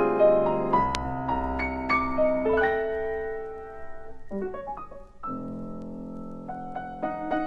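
Solo piano playing a contemporary classical piece: struck chords and single notes left to ring, a soft, quick cluster of low notes just past the middle, then a long held chord with a few higher notes added over it.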